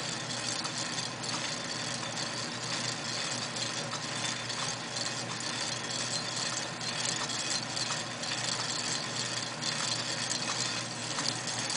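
Atlas 9-inch lathe running at low speed, its exposed change gear train meshing with a steady, rapid rattle over a low motor hum. It is a little noisy because the gears have no lubrication on them.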